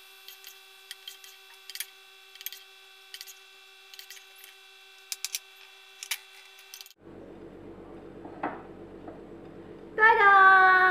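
A spatula scrapes and taps irregularly against a wok as the cooked fish is scooped out onto a plate, over a faint steady hum. Near the end a voice holds one loud note.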